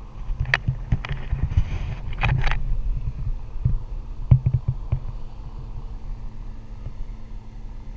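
Wind buffeting the microphone of a handheld action camera, a steady low rumble, with several sharp knocks and rustles from handling of the camera pole, the loudest about four seconds in.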